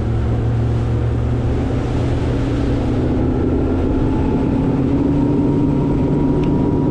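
Boat motor running steadily under way, its pitch creeping up slightly partway through.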